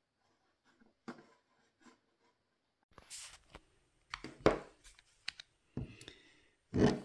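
Handling noises: a cordless drill being picked up and moved about over a wooden table, a few knocks and rustles after about three seconds of near quiet, the loudest knock a little after four seconds in.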